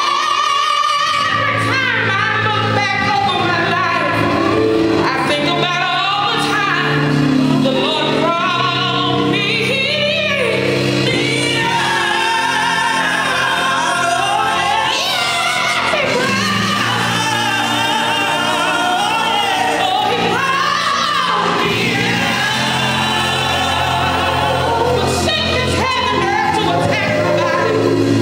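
Live gospel music: a group of women singing into microphones, backed by an electric bass guitar and band, amplified through a PA in a large hall.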